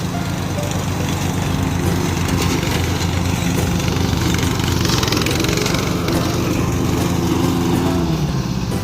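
A small engine running steadily, its pitch dropping slightly near the end.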